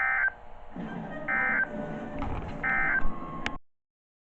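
NOAA Weather Radio end-of-message code: three short digital SAME data bursts about 1.3 s apart, signalling that the tornado warning broadcast has ended. After a brief silence, the steady 1050 Hz warning alert tone starts near the end, announcing the next warning.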